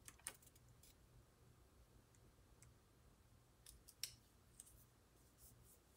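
Near silence with a few faint ticks and crinkles of fingers handling a small paper sticker at the edge of a planner page. Two slightly sharper ticks come just after the start and about four seconds in.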